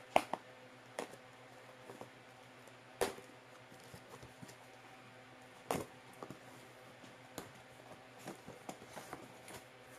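Cardboard box being opened by hand: scattered sharp clicks and crinkles of the cardboard and packing, the loudest near the start, about three seconds in and just before six seconds, over a faint steady hum.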